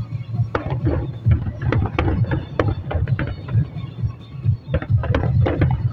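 Aerial fireworks going off: a rapid string of sharp cracks and pops, heaviest in the first few seconds and again near the end, over a steady low rumble of booms.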